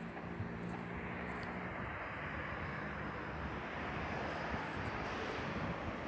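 Street traffic: a low engine hum fades out in the first couple of seconds, then the rush of a passing vehicle swells to a peak near the end.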